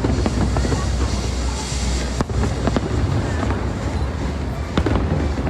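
Fireworks display: several sharp bangs over a continuous low rumble, with crowd voices underneath.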